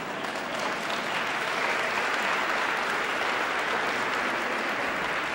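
Audience applauding in a large hall: a dense, steady patter of many hands clapping that swells over the first second and then holds.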